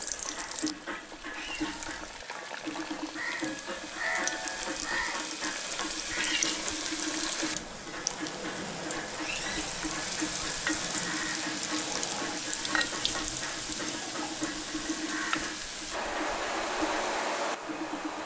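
Batter-coated bhetki fillets deep-frying in hot oil in a steel kadai, giving a steady, dense sizzle that shifts in level a couple of times.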